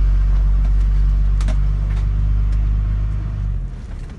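RV engine running under throttle as the motorhome pulls forward, a deep steady drone that drops away about three and a half seconds in.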